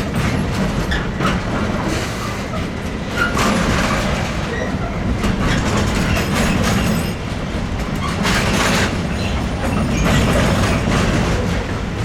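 Combined-transport freight train rolling slowly through the station: a steady rumble of wagons with wheels clacking over rail joints and points, and short wheel squeals here and there.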